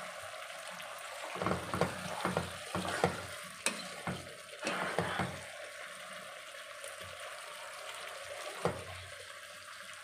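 A vegetable curry simmering in a pot with a steady sizzling hiss, while a spatula stirs it, scraping and knocking against the pot in a run of strokes from about a second and a half in to about five seconds, and once more near the end.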